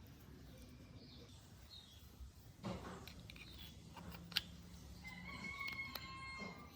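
Faint bird calls, including one long steady call through the last second and a half, with a few sharp small clicks, the loudest about four seconds in.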